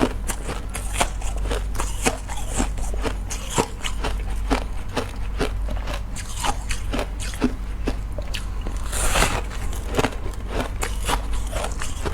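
A person biting and chewing ice, a quick run of sharp crunches about two to three a second, with a longer, grainier crunch about nine seconds in.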